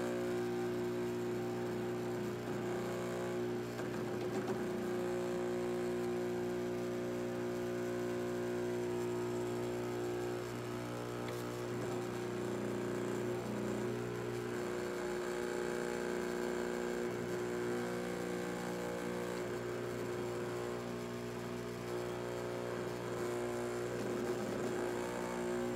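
Dental laboratory vibrator buzzing steadily with a mains-type hum while an impression tray is held against it to settle dental stone into the impression. The low part of the buzz changes briefly partway through.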